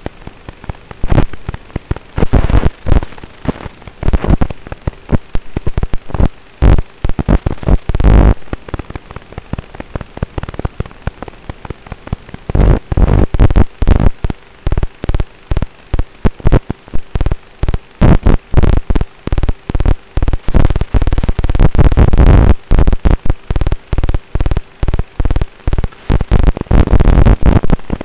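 Harsh, distorted crackling noise with frequent loud clipped bursts from the aircraft's analog FPV video-link audio in flight. A faint steady hum runs underneath.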